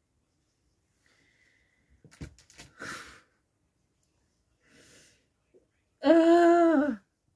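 A woman's wordless vocal sounds: a breathy exhale about three seconds in, then a loud, held vocal note lasting about a second that drops in pitch at its end. A few light clicks come just before the exhale.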